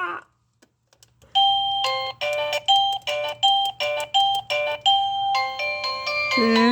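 Electronic doorbell chime playing one of its built-in tunes. After about a second of silence it sounds a quick run of short repeated notes, two or three a second, then moves into a melody with longer held notes near the end.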